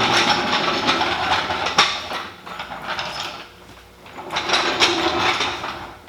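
Hand ratchet wrench clicking rapidly as it turns a Corvette Z06's stock leaf-spring height-adjustment bolt to lower the car. It runs in spells with short pauses in between.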